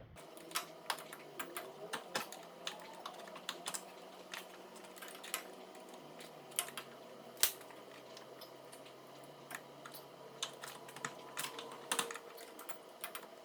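Irregular light clicks and taps of metal tools working under a car, from prying a CV axle out of its place, over a faint steady hum.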